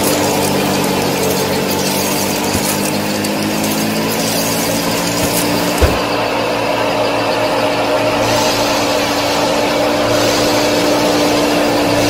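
Small electric motor and belt drive of a miniature model wheat thresher running steadily with a motor whine. There is a single click about six seconds in.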